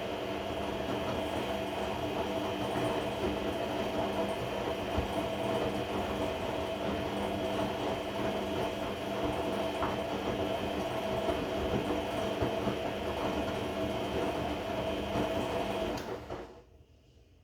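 Regal 1229 T washing machine tumbling its drum on a cotton 30 °C wash, making a steady mechanical noise with a held whine that sounds like a belt: the weird noise the owner is trying to trace. The motor cuts off suddenly near the end.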